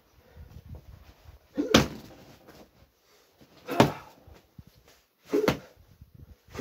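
Three strikes landing on a hanging heavy punching bag, each a sharp thud, about two seconds apart.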